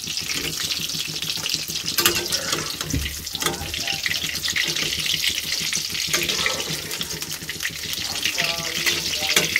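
Paneer pieces sizzling in hot oil in a kadhai, a steady hiss of shallow frying, with a few clicks and scrapes of a steel spatula against the pan and a steel plate as the pieces are lifted out.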